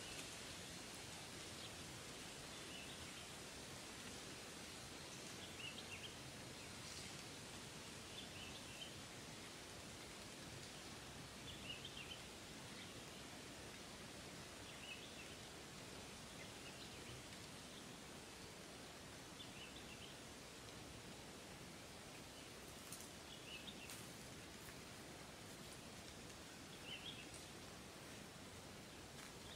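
Faint outdoor ambience: a steady hiss with short high chirps repeated every two to three seconds, and a few soft clicks near the end.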